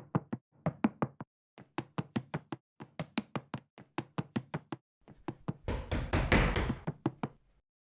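Rapid knocking in quick bursts of five or six knocks, about five a second, with short pauses between bursts. From about five and a half seconds a louder, noisier clatter joins in, then it dies away near the end.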